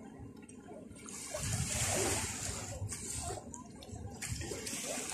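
Sea waves washing onto a sandy beach, swelling about a second and a half in, easing off, then building again at the end.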